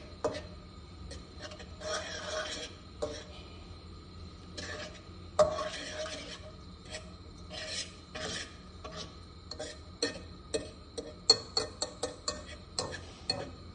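A utensil stirring and scraping egg around a frying pan in repeated short strokes, with quick clicks and taps of the utensil against the pan in the last few seconds.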